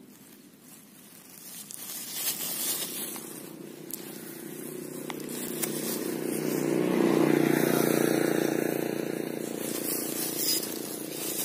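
A vehicle engine passing by, growing louder to its peak about seven seconds in and then fading, with a few light clicks and scrapes over it.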